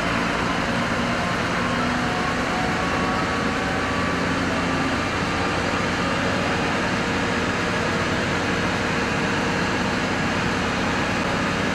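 Steady rumble of heavy fire-truck engines running, with a continuous hiss over it.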